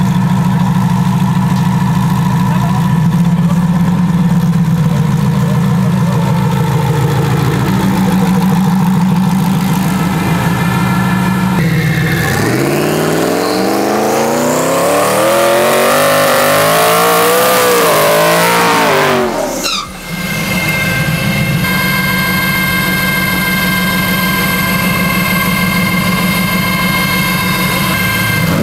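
Race truck engine running steadily for the first dozen seconds. It then climbs in pitch as it accelerates hard. The sound cuts off abruptly near 20 seconds, and a steady engine note returns.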